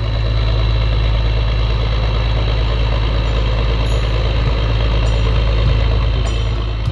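A large engine running steadily, a deep even hum with no change in speed.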